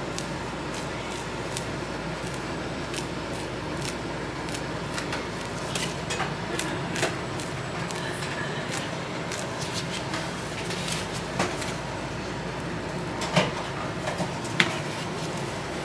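Steady kitchen background noise at a crepe counter, with scattered small clicks and knocks and two sharper knocks near the end.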